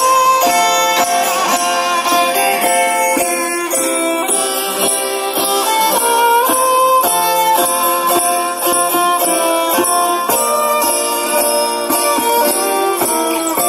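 Folk ensemble of violins and acoustic guitars playing a Christmas tune together.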